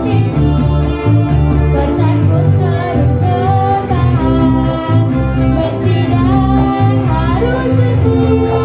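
Live amplified performance of a song: girls' voices singing the melody over electric guitar and a pulsing bass line.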